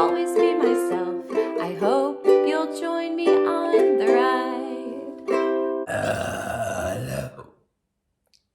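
Ukulele strumming and picking the last bars of a song, fading slowly. Then comes a loud, rough, low burp lasting about a second and a half, which cuts off abruptly.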